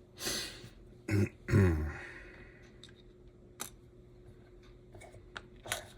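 A man clears his throat in the first two seconds, followed by a few faint, sharp clicks.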